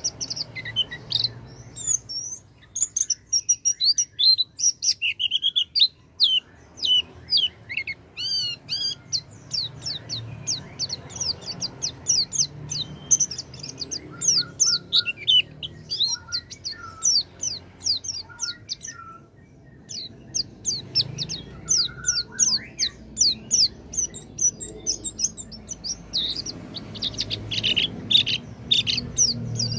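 White-eye (pleci) song: a fast, near-continuous stream of high twittering chirps with a short lull about two-thirds through, and a few lower whistled notes in the middle.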